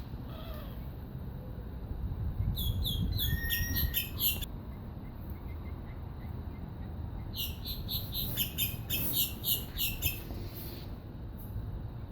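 Small birds chirping in two bursts of rapid, high-pitched repeated notes, the first about two seconds long and the second about three, over a steady low rumble.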